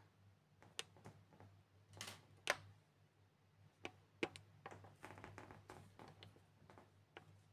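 Scattered light taps and clicks of fingers pressing and shaping plasticine on a modelling board, over a faint steady low hum. The sharpest tap comes about two and a half seconds in, with a quicker run of small taps a little later.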